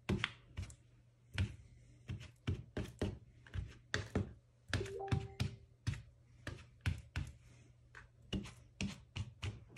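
A small ink pad dabbed face-down again and again onto a paper die-cut on a craft mat, giving a series of soft taps at an uneven pace of about two a second.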